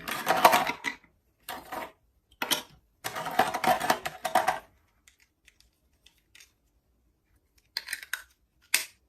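Plastic Mega Bloks building pieces clattering and clicking as they are handled and fitted together, in several busy bursts, then only scattered faint clicks for a few seconds before a couple more clicks near the end.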